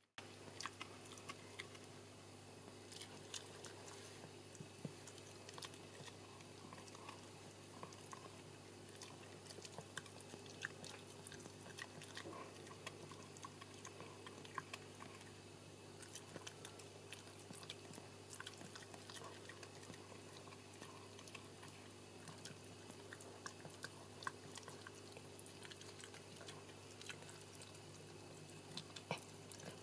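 Shetland sheepdog mother licking and chewing at her newborn puppy's amniotic sac, heard as faint wet smacks and small clicks scattered throughout, over a steady low hum.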